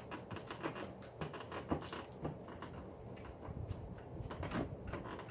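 Hands pressing and rubbing along a stainless steel bumper guard taped onto a car's rear bumper, with scattered faint taps and scuffs.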